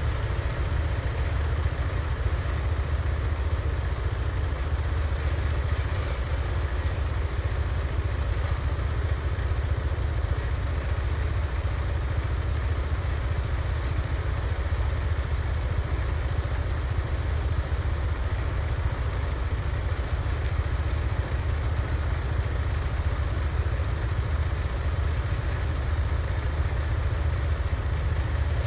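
Garden tractor engine idling steadily, a constant low running sound with no change in speed.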